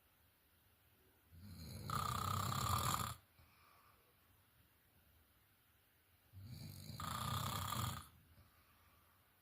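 A sleeping person snoring: two rough, rumbling snores about five seconds apart, each lasting under two seconds, with quiet breathing pauses between them.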